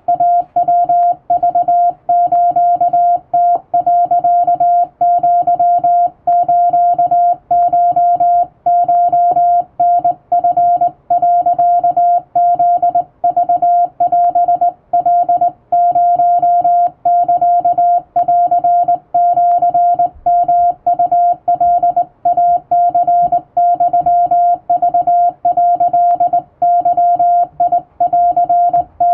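Morse code sent by hand on a straight (up-and-down) telegraph key: a single steady beep tone switched on and off in short and long elements, spelling out Japanese Wabun Morse.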